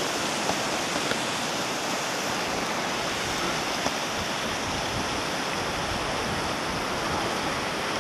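Steady, even rushing noise outdoors, with no other sound standing out apart from a few faint knocks.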